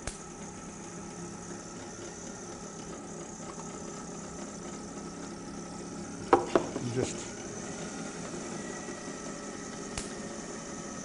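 Van de Graaff generator's electric motor and belt running with a steady hum. There are a few sharp clicks, and a brief cluster of louder knocks about six seconds in.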